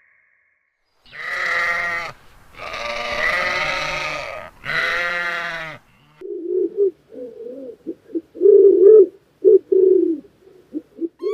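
Three long, loud bleats from a goat or sheep, each about a second and a half, in quick succession. These are followed by a run of short, low calls repeated unevenly to the end, like cooing.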